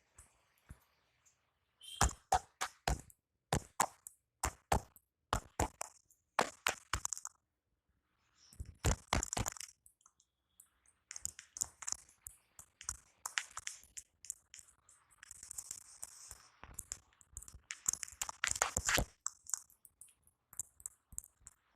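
A barber's hands striking in a massage: a run of sharp slaps and chops from about two seconds in, then further bursts of quick strikes with rubbing between.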